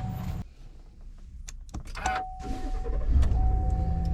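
A truck being got into and started: sharp clicks of the door and keys, a steady warning tone from the dash, then the engine starts about three seconds in and runs at idle.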